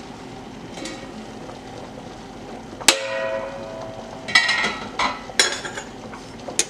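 A stainless steel stockpot lid is lifted off with one sharp metallic clang that rings for about a second, followed by several lighter metal clinks. Underneath is the steady hiss of the pot of hominy boiling.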